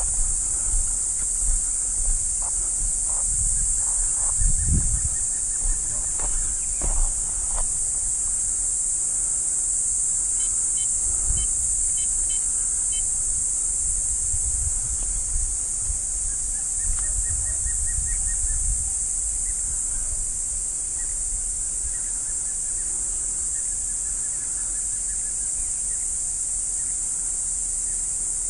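Steady, shrill insect chorus with no break, a continuous high-pitched hiss. Low rumble sits under it, with a few short knocks in the first several seconds.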